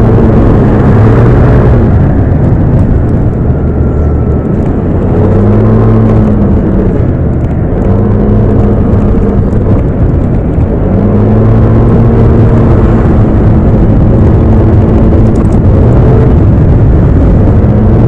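Yamaha motorbike's engine running under way in city traffic, its note climbing and dropping several times as the throttle opens and closes, over steady road noise, with no wind noise.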